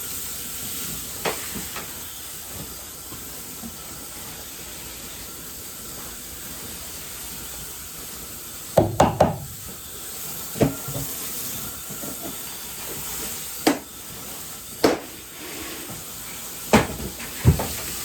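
Garden hose running, a steady hiss of water, with several short knocks and clunks in the second half.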